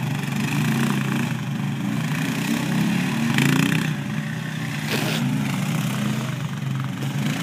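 Single-cylinder Honda Foreman ATV engines running under load, their pitch wavering up and down as the quads dig their wheels into deep sand.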